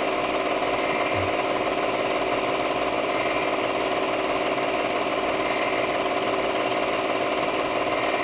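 8mm film projector running with a steady mechanical whir and hum.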